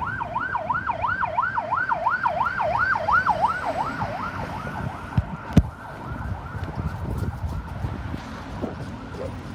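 Ambulance siren in a fast yelp, rising and falling about three times a second, fading away after about four seconds into low road noise. A single sharp click about five and a half seconds in.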